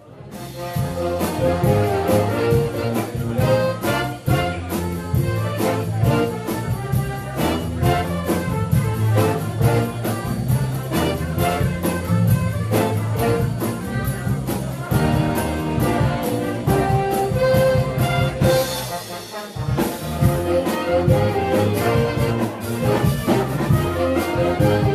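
Big band playing a jazz number: trumpets, trombones and saxophones over a steady drum beat, with a brief drop about two-thirds of the way through before the full band comes back in.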